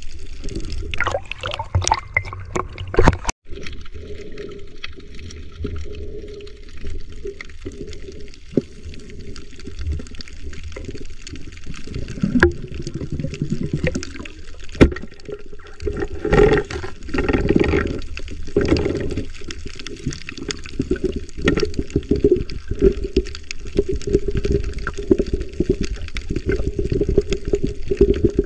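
Underwater noise of water rushing and gurgling against a camera carried through the sea, with stretches of louder bubbling about a second in and again past the middle.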